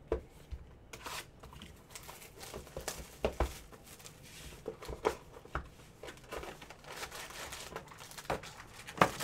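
A cardboard trading-card hobby box being handled and torn open: rustling and tearing of paperboard flaps, with irregular sharp knocks and taps as it is set down and pressed, the loudest knock near the end.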